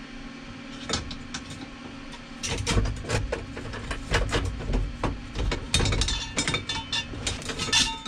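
Handling noise of a painted steering column tube being test-fitted under a car's dashboard: a couple of light clicks about a second in, then from about two and a half seconds a run of knocks, clunks and rattles with low thumps as the tube is moved and pressed into place.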